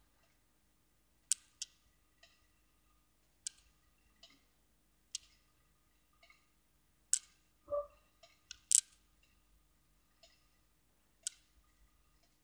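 About a dozen short, sharp clicks at uneven intervals, with a brief low tone and thud a little past the middle, just before the loudest clicks.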